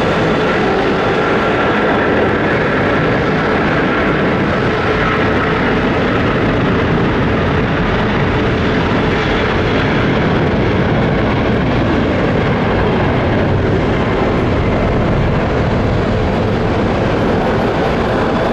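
Boeing 777-200ER twin-engine jet taking off: loud, steady engine noise with a few faint whining tones over it.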